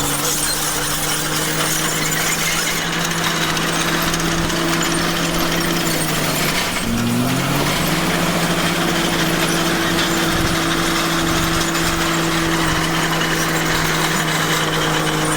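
Komatsu bulldozer's diesel engine running steadily under a thick layer of high-pitched noise; about seven seconds in its pitch sags briefly and then climbs back.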